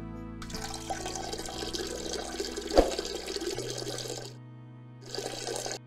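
Trickling, splashing water sound effect for a cartoon dog peeing. The stream runs for about four seconds, stops, then comes again in a short spurt near the end, with one sharp click about three seconds in. Soft background music plays underneath.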